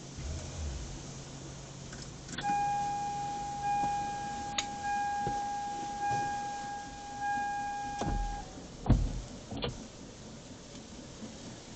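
A steady electronic beep tone held for about six seconds, with a few sharp clicks during it and a dull thump with more clicks just after it stops.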